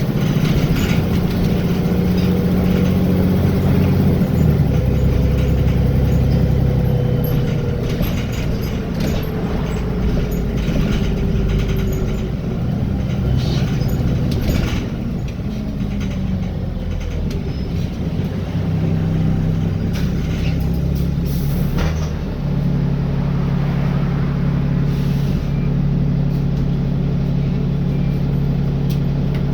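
Wright Gemini 2 double-decker bus on a VDL DB300 chassis, heard from on board: the engine and running gear change speed through the first half, with a few sharp clicks and hisses, then settle into a steady idle for the last several seconds.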